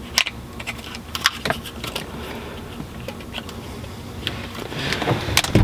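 Plastic clicks and rattles of a dash cam's suction-cup mount being slid and snapped onto the camera body, a string of sharp irregular ticks over a steady low hum.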